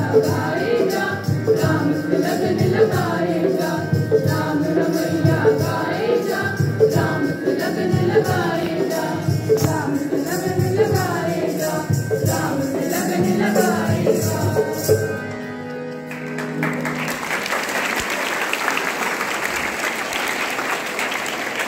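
A group of students singing a song together with a steady drum and jingle beat, ending on a held note about fifteen seconds in, followed by applause from the crowd.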